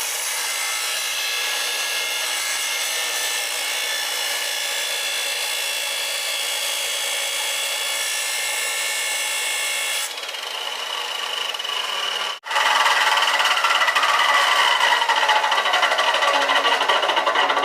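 Power grinder running with a steady high whine, then, after an abrupt break about twelve seconds in, louder and rougher grinding as a drill bit is sharpened against it.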